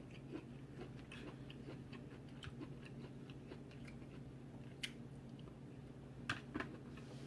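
Close-miked chewing and eating: soft, scattered mouth clicks and smacks, with a few sharper ones after about five seconds and again near the end, over a low steady hum.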